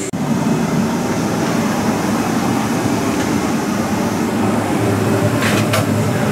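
Steady airliner cabin noise from the Boeing 777-300ER's ventilation air, a dense low rumble with hiss, and two short clicks about five and a half seconds in.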